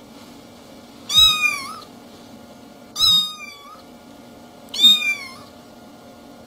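Domestic cat meowing three times, about two seconds apart, each meow short with its pitch rising and then falling.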